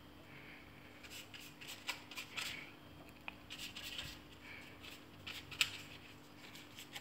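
Pastry brush dabbing and stroking water onto sheets of fyllo pastry, with faint, irregular papery rustling and brushing strokes as the thin sheets are pressed together.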